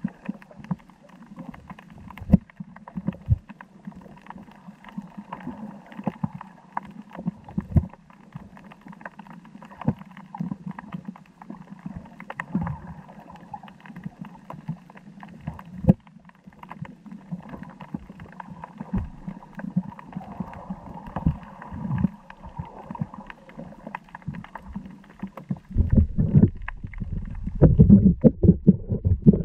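Underwater sound picked up by a camera in a waterproof housing: muffled, with scattered clicks and crackles over a low steady hum. Near the end, heavy low rumbling and thumps take over.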